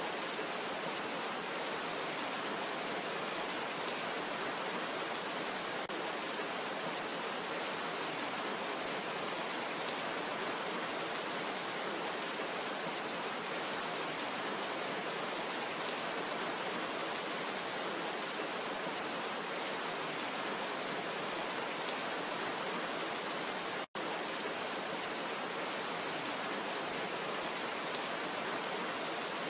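Steady rain falling, an even, dense hiss with no single drops standing out. The sound cuts out for an instant about 24 seconds in.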